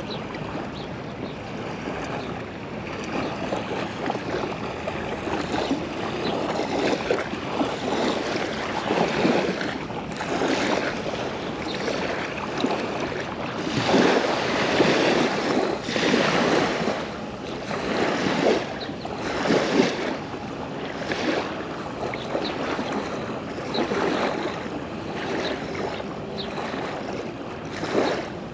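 Small river waves lapping and breaking on a sandy shore, coming in irregular surges every second or two, with some wind on the microphone.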